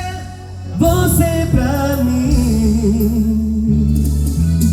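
A band plays a song while a singer holds a long, wavering note over a steady bass line that shifts pitch a few times.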